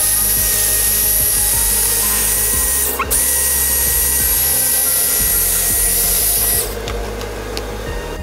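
Small handheld hair dryer running, its motor giving a steady whine under the rush of air; it dips briefly about three seconds in and switches off near the end.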